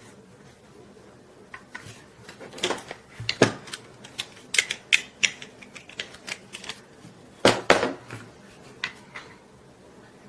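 Irregular clicks and clacks of small plastic camera gear being handled, likely the parts of a plastic mini tripod knocking and snapping. The clicks start about a second and a half in, with the loudest around three seconds in and again about three-quarters of the way through.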